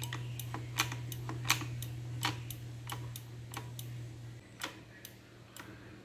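Front brake lever of a Honda CRF1000L Africa Twin being pumped over and over, a quick run of light clicks about three to four a second, to build pressure back up in the front brake after new pads are fitted. A low steady hum runs underneath and drops away slightly about four and a half seconds in.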